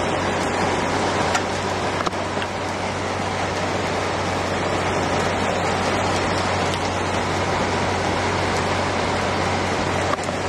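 Heavy rain falling steadily on pavement and foliage: a dense, even hiss with a few sharper drop ticks.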